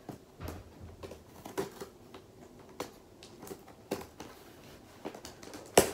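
Scissors cutting open a cardboard box: a run of short, irregular snips and clicks, with a louder sharp knock just before the end.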